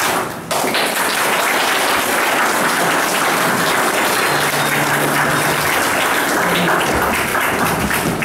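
Audience applauding steadily. The clapping starts about half a second in, just as the dance music ends.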